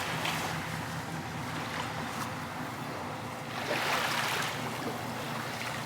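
Steady wind and sea-water noise over a low steady hum, swelling into a louder wash of water about four seconds in.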